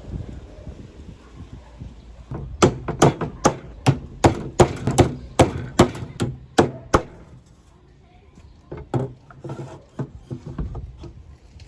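Quick series of about fifteen sharp knocks on wood, hammer blows on a small wooden workpiece, starting about two seconds in and stopping near the middle, with a few fainter knocks afterwards.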